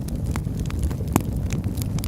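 Fire in a fireplace crackling with frequent sharp pops over a low steady rumble, one louder pop a little over a second in.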